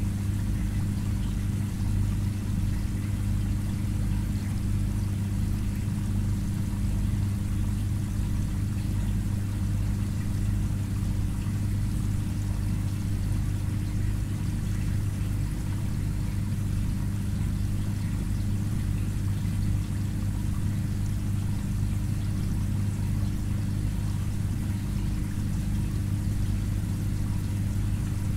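An aquarium's filter pump running: a steady low hum with water trickling and pouring over it.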